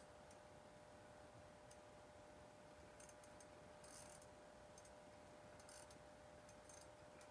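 Faint, irregular clicking of a light spinning reel as a small fish is reeled up through the ice hole, over a faint steady hum; otherwise near silence.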